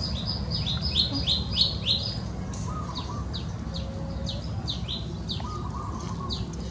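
Small bird singing a quick series of high, falling chirps, close together for the first two seconds and more spaced out after, over a steady low rumble.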